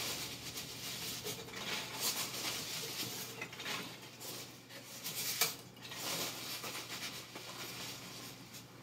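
Packing peanuts rustling and squeaking against cardboard as a hand digs through a shipping box and scoops them out, in uneven bursts.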